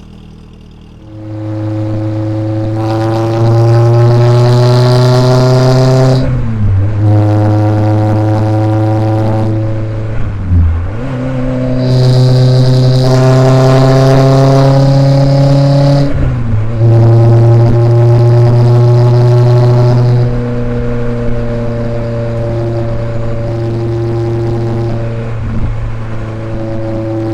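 Renault Sport Spider's 2.0-litre four-cylinder engine, heard uncovered with its lid off, pulling hard and rising in pitch through the gears, with a short break at each upshift. The loudest pulls come about 3 to 6 and 12 to 16 seconds in; after about 20 seconds it runs at a steadier pitch.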